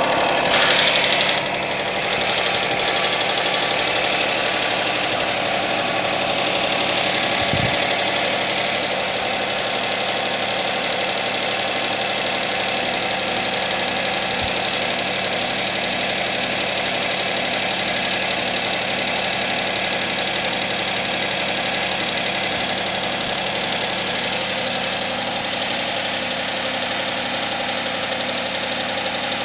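Suzuki Vitara engine running cold with a steady knocking: the cold-start knock it has. A brief louder noise comes about a second in.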